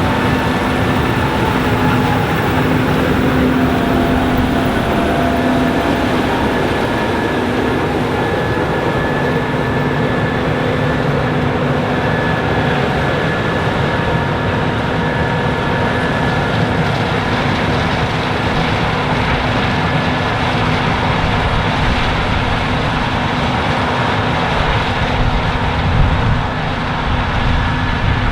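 Case IH 7130 Axial-Flow combine with its 8.7-litre FPT diesel harvesting corn: the engine, rotor and corn head run in a steady loud drone with a constant hum and a thin high whine.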